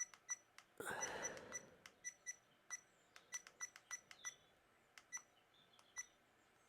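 Bopower 4K action camera's menu buttons being pressed over and over, each press giving a faint click with a short electronic beep. The beeps come several a second at first and grow sparser toward the end. There is a brief rustle of handling about a second in.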